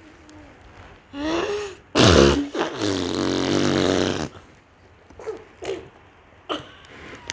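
A girl making a mock fart noise: a short rising vocal sound about a second in, then a loud buzzing raspberry lasting about two seconds, followed by a few short soft vocal sounds.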